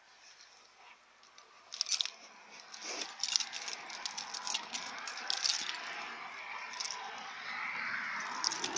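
Handling noise of a phone carried in the hand, rubbing and knocking against clothing: faint at first, then irregular sharp clicks about two seconds in, followed by steady rustling and scraping.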